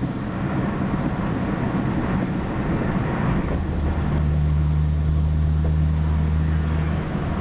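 Nissan Skyline GT-R R34's RB26DETT straight-six running, uneven at first and settling into a steady idle hum about halfway through, with its stock Getrag six-speed gearbox rattling. The rattle is abnormally loud for this gearbox and Nismo clutch, and a transmission oil change has not cured it.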